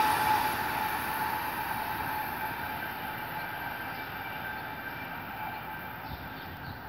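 Amtrak Northeast Regional passenger train receding after passing at speed, its rolling noise on the rails fading steadily away. A high ringing tone dies out within the first second.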